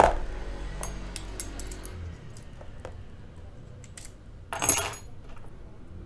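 Small metallic clicks and clinks of lock-picking tools and lock cylinders being handled and set down on a table, with a louder metal clatter about three-quarters of the way through.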